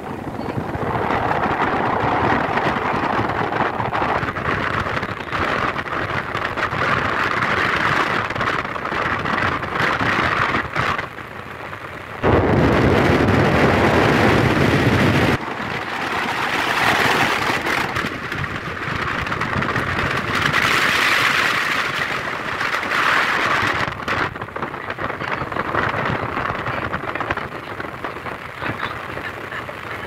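Heavy wind gusting on the microphone, a rushing noise that rises and falls, with a louder, deeper blast lasting about three seconds about twelve seconds in.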